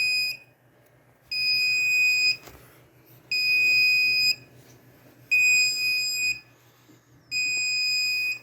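RAID controller's audible alarm beeping very loudly: a high steady tone about a second long every two seconds, four full beeps plus the end of one as it starts. The alarm is warning of a fault in the drive array, a failed hard drive.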